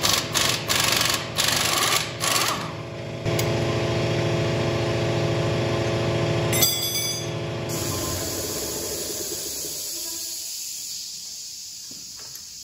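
Pneumatic impact wrench rattling in several short bursts as it undoes the tractor's front-axle bolts, over a steady machine hum that carries on after the wrench stops and gradually fades.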